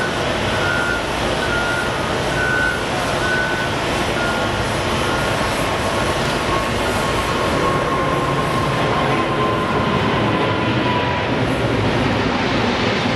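Boeing 777-200ER's twin GE90 turbofans at takeoff thrust as the jet rolls, lifts off and climbs away: a loud, steady jet noise with a thin whine that slowly falls in pitch past the middle.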